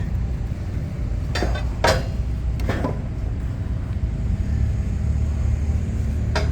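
An engine running steadily with a low rumble, with four sharp metallic clanks over it, the loudest about two seconds in.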